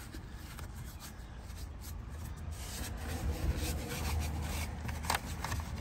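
Detail brush scrubbing a foamed-up leather steering wheel, the bristles rubbing over it in quick repeated strokes.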